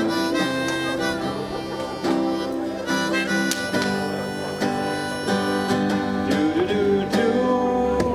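Harmonica on a neck rack played over a strummed acoustic guitar by a single musician, a steady folk/country-style accompaniment with held harmonica notes changing every second or so.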